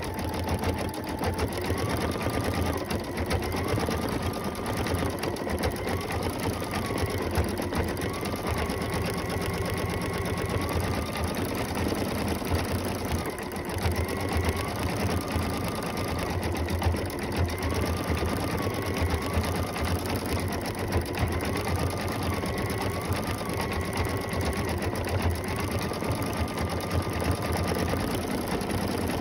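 Computerized embroidery machine stitching a design at speed: a steady, fast needle clatter with a motor whine that steps up and down in pitch every second or two as it works.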